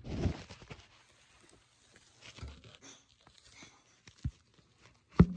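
Hay rustling and crackling close to the microphone as a hand works in a guinea pig cage. A dull knock comes at the start, a short thump a little after four seconds, and a sharp knock near the end.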